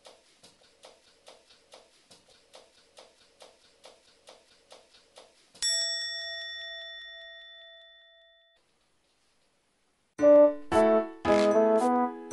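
Soft, even ticking, about three ticks a second, cut off about five and a half seconds in by a single bright chime that rings and fades over about three seconds. After a short silence, loud keyboard music starts near the end.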